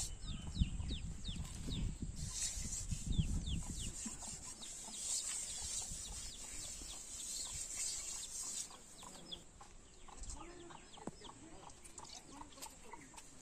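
A round metal pot rubbed and scoured with a bundle of straw, a dense scraping for the first four seconds or so, then quieter. Birds chirp with short, quick falling peeps throughout.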